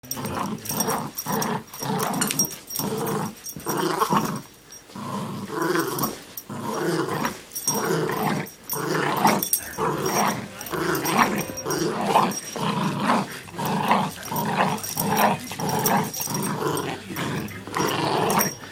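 Chihuahua growling in rough play, a long run of short growls about two a second, with brief pauses.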